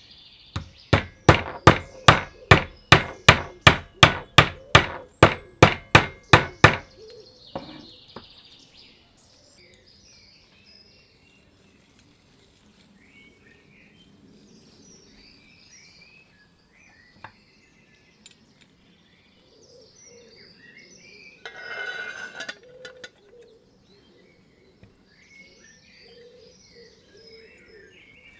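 A hammer tapping a steel pin into the handle of a vintage Blow butter churn: about eighteen sharp, ringing metallic strikes at roughly three a second, stopping about seven seconds in. Faint bird chirps follow, with a brief rattling burst about three-quarters of the way through.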